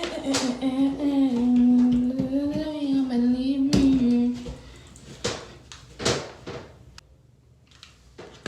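A woman humming one long wordless, slowly wavering note for about four seconds, then a few sharp knocks or clicks of things being handled.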